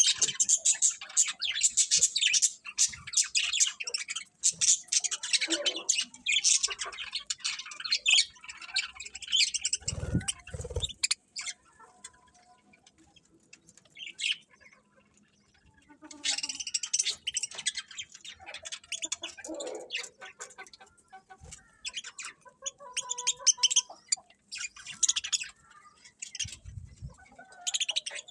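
Small birds chirping and tweeting in rapid, high-pitched runs, with a lull of a few seconds after about eleven seconds before the chirping starts again.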